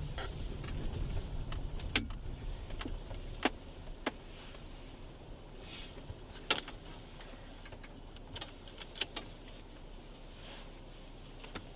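Police patrol car running with a low rumble that fades after about three to four seconds as it pulls in and stops. Scattered sharp clicks and knocks come through, the loudest about six and a half seconds in.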